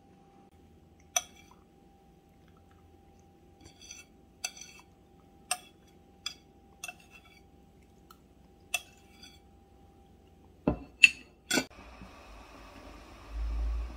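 Dishes or glassware clinking, about eight light, ringing clinks spread out at irregular intervals, then three louder knocks in quick succession. Just after them a steady rushing noise starts and carries on.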